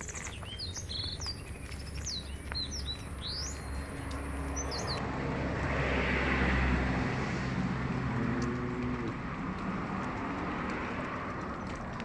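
Small birds chirping, with many quick whistled chirps for the first five seconds; then the sound changes abruptly to a rushing hiss that swells and fades, with a faint low call near the end.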